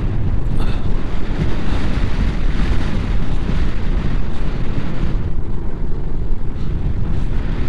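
Wind buffeting the rider's microphone while riding a motorcycle at speed, a loud steady rumble with engine and road noise underneath.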